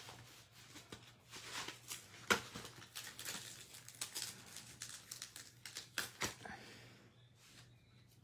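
Plastic crinkling and rustling as clear stamp sheets and their plastic sleeves are handled and a stamp is peeled off its carrier sheet, with a few light clicks; it quietens near the end.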